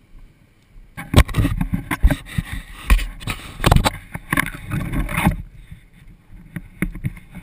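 Rough buffeting noise with irregular thumps on a helmet-mounted camera, starting about a second in and stopping about four seconds later. No engine tone is heard.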